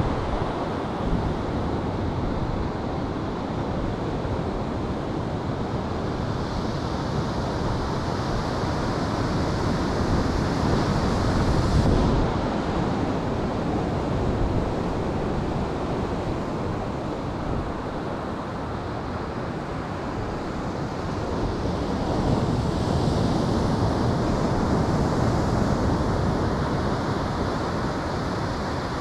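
Ocean surf breaking and washing on the beach, mixed with wind rushing over the microphone. The surf swells twice, building to a peak about twelve seconds in and again in the last third.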